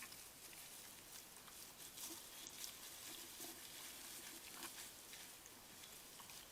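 Faint rustling and light crackling, as of an animal moving over the forest floor, with a few soft, short low sounds in the middle.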